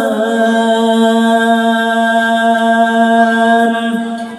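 A man's voice singing a nasyid, holding one long steady note on the last word of a line, which fades out near the end.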